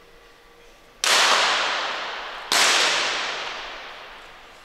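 Two .22 rimfire free-pistol shots, about a second and a half apart, each a sharp crack that rings out and fades slowly in the range's echo.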